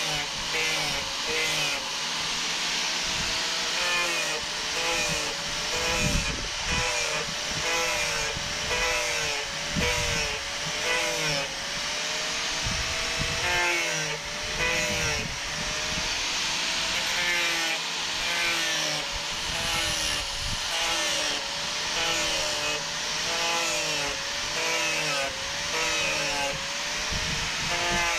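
Handheld electric grinder carving and smoothing redwood. Its motor pitch dips and recovers over and over, about once a second, as the disc bites into the wood and eases off, over a steady grinding hiss.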